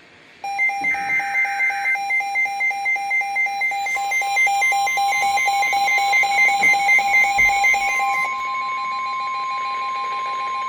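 Weather radio alert signals: a short burst of warbling data tones about a second in, then a receiver's alert beeping about twice a second, joined about four seconds in by the NOAA Weather Radio warning alarm tone, a long steady tone that runs on after the beeping stops near eight seconds.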